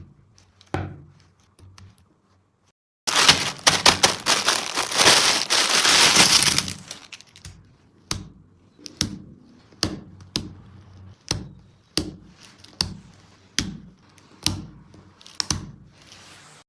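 Plastic toy parts being handled: about three seconds in comes a few seconds of dense crackling and rustling, then a run of sharp clicks and knocks, roughly one a second.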